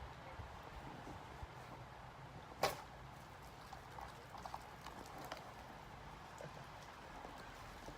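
A single quick swish-and-cut stroke of a dotanuki katana about two and a half seconds in, short and sharp. Faint small clicks and crunches follow over a low steady background.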